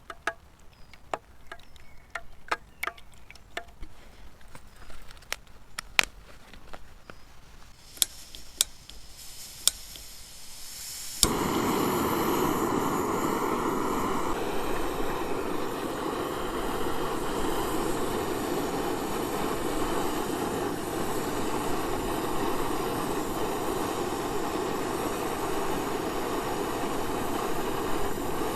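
Scattered light clicks and taps of cooking gear. About eleven seconds in, a sharp click is followed at once by a steady rushing roar, as a camp stove burner is lit and runs.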